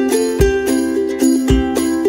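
Background music: bright plucked and chiming notes over a steady beat, with a low thump about once a second.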